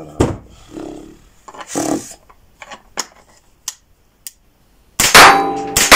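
Small clicks and rubbing as a Browning SA-22 .22LR rifle is handled and loaded, then two very loud shots in quick succession near the end, each followed by a metallic ringing.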